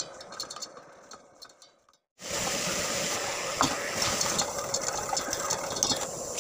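Spoon mixing a yogurt and spice marinade in a steel bowl, with quick light clicks against the bowl over a steady hiss. The sound cuts out completely for a moment about two seconds in, and there is a loud knock at the very end.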